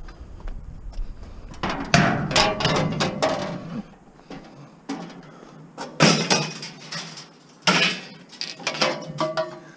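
Pieces of scrap metal clattering and clanging with a short ring as they are tossed into a bin, in three bursts, the first about two seconds in and the others later on.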